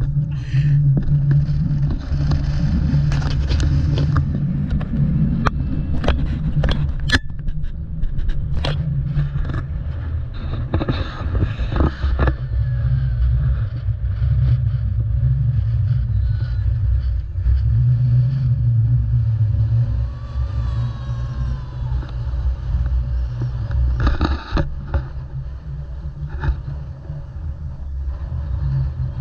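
Road vehicle engine running with a steady low rumble, with frequent sharp clicks and rattles over it.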